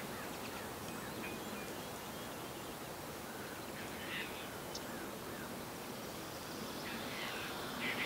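Steady outdoor background noise with a few faint, distant bird calls, the clearest about four seconds in.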